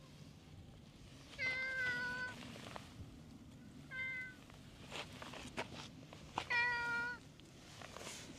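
Domestic cat meowing three times: a long meow about a second and a half in, a short one around four seconds, and another long one near the end, each on a fairly even pitch. A few soft taps and rustles come between the calls.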